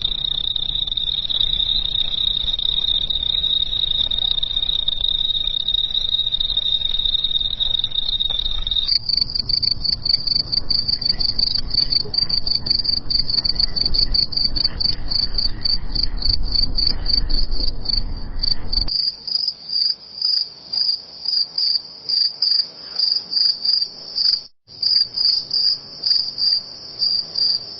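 Crickets chirping. A steady, unbroken high trill gives way about a third of the way in to a rapid pulsing chirp a little higher in pitch. About two-thirds in, it changes again to separate chirps, roughly two a second.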